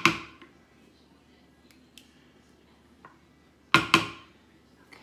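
A spoon clinking against a glass baking dish: a sharp ringing clink at the start, a few light taps, then two clinks in quick succession near the end.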